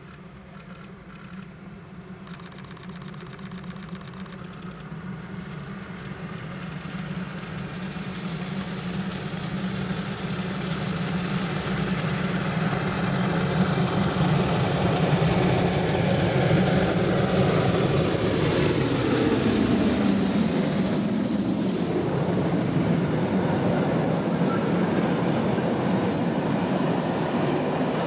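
Steam locomotive hauling a freight train, approaching and growing steadily louder, its sound dropping in pitch as it passes about two-thirds of the way through; then the freight wagons roll by on the rails.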